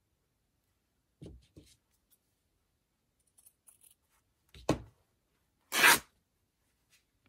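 Paper craft materials handled on a work table: two soft knocks about a second in, a sharper knock just before five seconds, then a short, loud rustle of paper about six seconds in.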